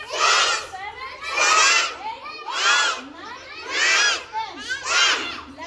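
A group of young children shouting out numbers in chorus as they count aloud, one loud shout about every second, five in all.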